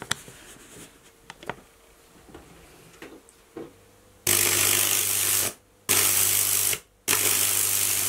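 High-voltage arc from a microwave oven transformer (about 2000 volts) burning into an apple: a loud hissing crackle over a steady low hum. It switches on about four seconds in, stops twice briefly, then runs on, after a few faint clicks.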